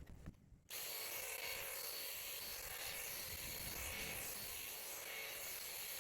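Graco handheld airless paint sprayer switching on under a second in and running steadily as it sprays paint, a constant motor buzz with the hiss of the spray.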